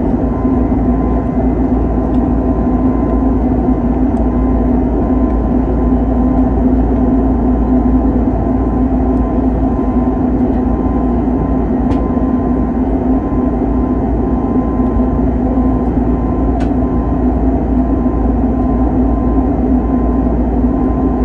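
Airbus A320 jet engines and rushing air heard from inside the cabin in flight: a steady, unchanging drone with a constant hum.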